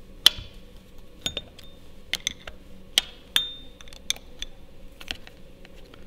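Steel spanner clinking on the counter nut of a hand-wheel worm screw as the nut is loosened: about a dozen irregular sharp metallic clicks, a few ringing briefly.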